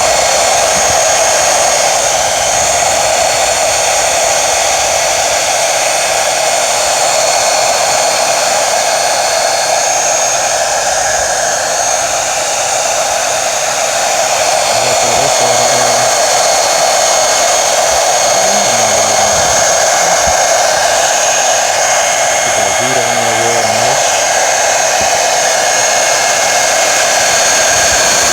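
Handheld blow dryer running steadily on its heat setting: an even rush of air with a thin, high whine.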